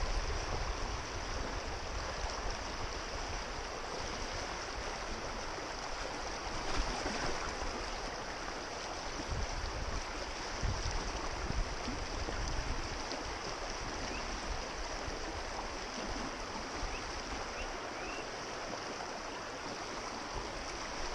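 Steady hiss of moving river water, with wind buffeting the microphone in uneven low rumbles.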